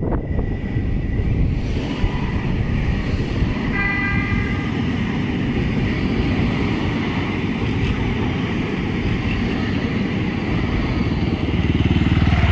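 Metro do Porto light-rail tram passing close by with a steady rumble, sounding a brief horn tone about four seconds in. A motorcycle engine comes up loud near the end.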